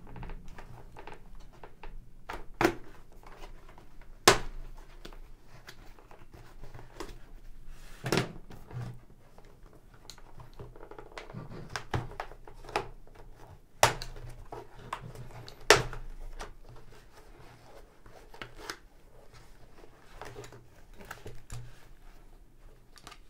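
Cheek pads being pulled out of an HJC i70 motorcycle helmet: a run of sharp, irregular clicks and snaps as the pads' fasteners let go of the shell, over a steady rustle of foam and fabric being handled.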